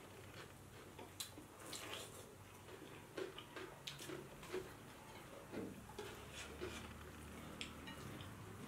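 Faint eating sounds: wet chewing and lip smacks, with soft squishes of rice and curry being mixed by hand, heard as short, irregular clicks.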